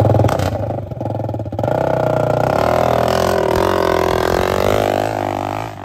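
Dirt bike engine revving hard, then accelerating away with a climbing, wavering pitch that drops off near the end.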